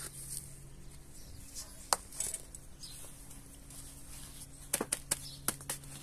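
Sharp clicks and taps as a plastic plant pot filled with gritty substrate and perlite is handled and settled in place. There is one loud click about two seconds in and a quick cluster of clicks near the end, over a steady low hum.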